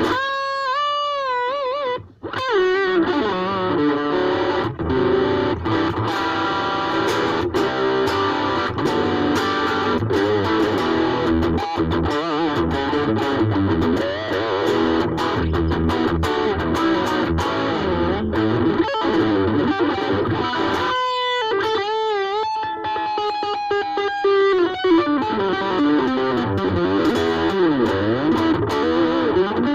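Ibanez AXS42 electric guitar, rewired with solid-core vintage wire, played through an amplifier: sustained lead notes and chords with wavering string bends and vibrato. The sound briefly drops out about two seconds in.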